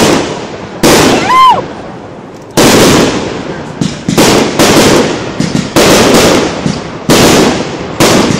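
Aerial firework shells bursting overhead in quick succession, about eleven loud bangs in eight seconds. Each bang is followed by a rumbling echo that fades before the next.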